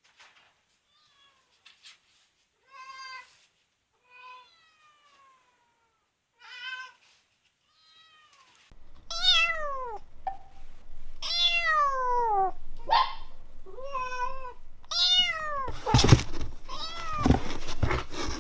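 Cat meowing repeatedly. A few faint, short meows come first; about nine seconds in, louder, longer meows begin, falling in pitch, over a steady background hiss, with a few knocks near the end.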